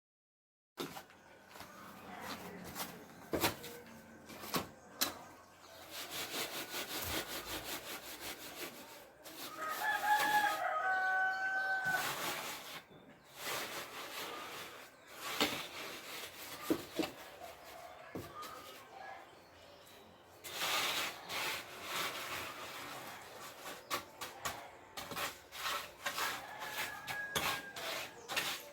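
A rooster crows, one long call about ten seconds in and a fainter one near the end, over scraping and knocking sounds.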